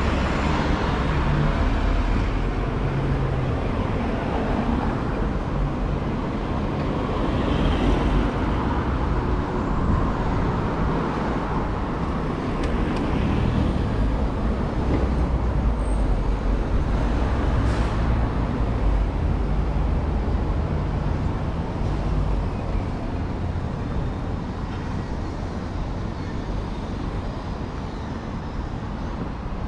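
Busy city road traffic: cars and vans driving past close by, a steady mix of engine rumble and tyre noise.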